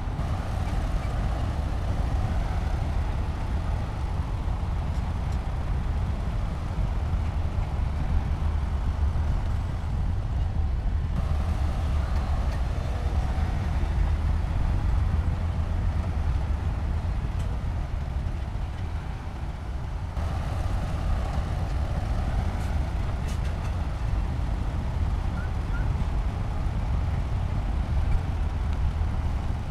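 Heavy diesel construction machinery running steadily with a deep rumble. The sound changes abruptly twice, about eleven and twenty seconds in.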